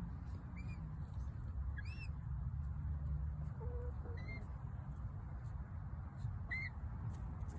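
Young chicken (adolescent chick) giving short high peeps, each rising and falling, four of them a second or two apart, over a steady low hum.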